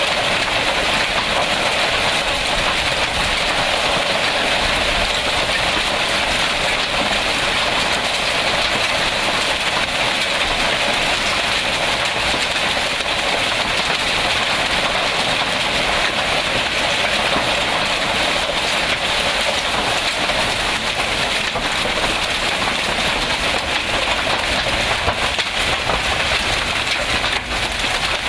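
Heavy rain mixed with hail pelting down in a thunderstorm, a loud, steady, dense patter with fine scattered ticks.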